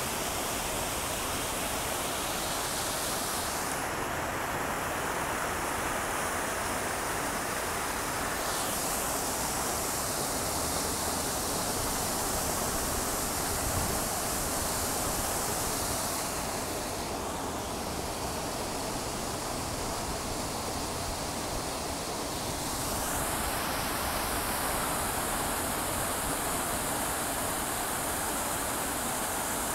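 Revson Fountain's ring of water jets splashing into its pool: a dense, steady rush of falling water. The high hiss shifts several times as the jets change.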